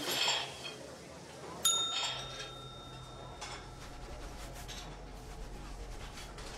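A diner's order bell is struck once about a second and a half in, and its ring fades over two seconds or so. Light clinks of kitchenware and a low hum sound behind it.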